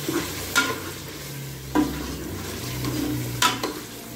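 A metal spoon stirs a thick meat curry in a metal pot while the curry sizzles and cooks. The spoon gives three sharp clinks against the pot, one to two seconds apart.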